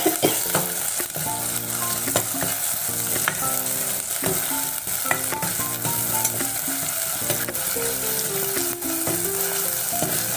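Tomatoes and green chillies sizzling in hot coconut oil in a clay pot, stirred with a steel ladle: a steady frying hiss with scattered clicks and scrapes of the ladle against the pot.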